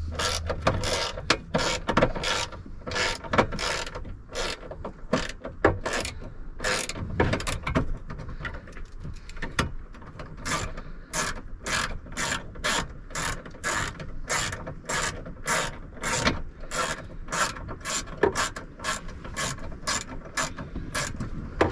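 Ratchet wrench with a 7 mm socket backing out a bolt, the pawl clicking in short bursts about twice a second, one burst on each back-swing.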